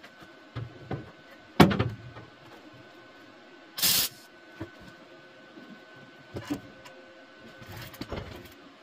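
A single short MIG tack weld about four seconds in, a brief crackling hiss of the arc on thin sheet steel lasting a fraction of a second. Before it, about a second and a half in, comes one sharp knock, the loudest sound here, and a few faint handling clicks follow.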